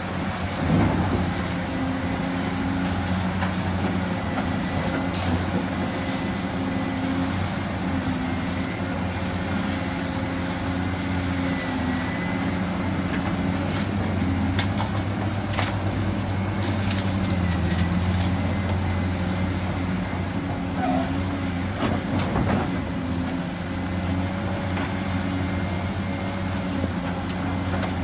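Heavy diesel engines of excavators and dump trucks running steadily, with a few faint knocks in the middle.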